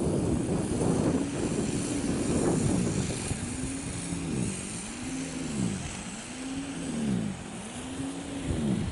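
Snow blower running, its motor note rising and falling in an even swell about once a second over a wash of noise.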